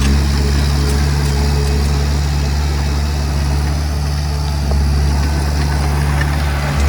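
Komatsu D20P bulldozer's diesel engine running steadily with a deep hum, and a short knock near the end.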